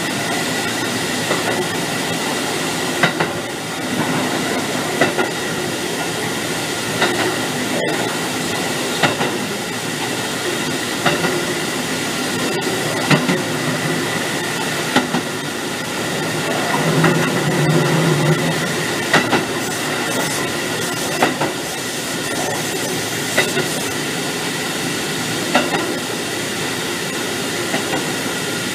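Kotoden 1300-series electric train (ex-Keikyu 1000 series) running on jointed track, heard from inside the cab: a steady rumble with a thin high whine, and wheels clacking over rail joints about every two seconds, often in quick pairs.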